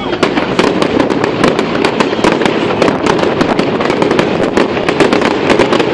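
Fireworks display going off: a dense, continuous run of sharp crackling pops and bangs, several a second.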